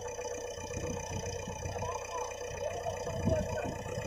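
JCB 3DX backhoe loader's diesel engine running steadily, with faint voices in the background.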